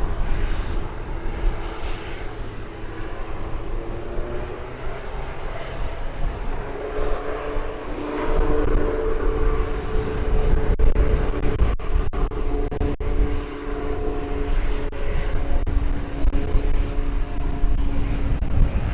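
Piaggio Avanti II's twin Pratt & Whitney PT6A-66 pusher turboprops at takeoff power: a droning tone that climbs in pitch over the first several seconds, joined by a second, lower tone partway through. Gusty wind rumbles on the microphone throughout.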